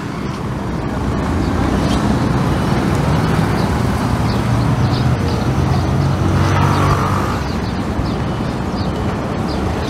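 Road traffic: a steady engine rumble from passing vehicles, swelling to its loudest around the middle as a heavier vehicle goes by.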